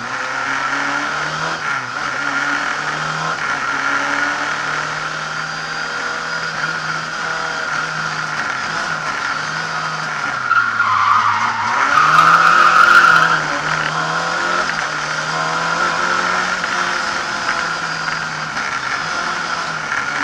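Lada 2101 rally car's engine running hard from inside the cabin, revs rising and falling through the drive. About ten seconds in the revs drop, and soon after a louder, higher-pitched burst lasts for over a second.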